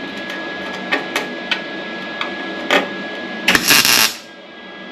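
Welder laying a short tack weld on the new sheet-steel cab corner of a 2002 Ford F-350: a few sharp clicks, then a dense crackling burst lasting under a second about three and a half seconds in, over a steady hum with a faint high tone.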